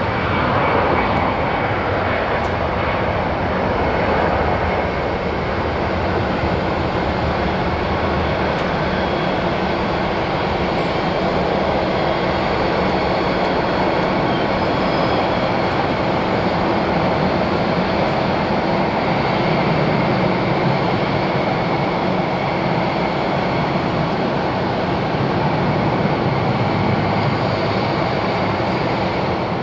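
Twin-engine Airbus A320-family jet airliner taking off, its engines at takeoff thrust giving a steady, loud noise as it rolls down the runway and climbs away.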